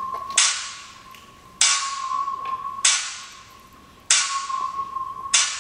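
Pop backing track playing through a loudspeaker: a sharp clap-like snare hit about every one and a quarter seconds, each with a hissy tail, over a steady held high synth note.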